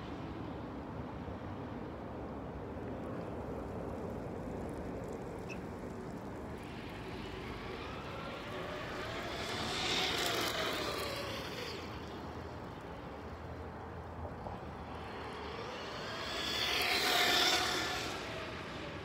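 Traxxas Stampede 4x4 brushless electric RC monster truck running around the lot, its motor whine rising and falling as it swings close by twice, about ten seconds in and again near the end.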